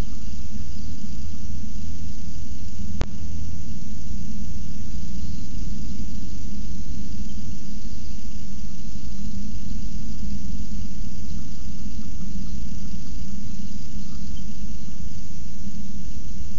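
Storm noise on the nest-box microphone: a steady, loud low rumble with a faint hiss, typical of wind buffeting the box. One sharp click comes about three seconds in.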